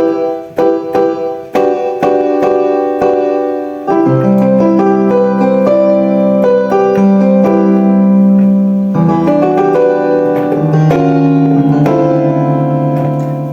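Piano voice of an electronic keyboard played with reverb added: struck chords and melody notes that ring on.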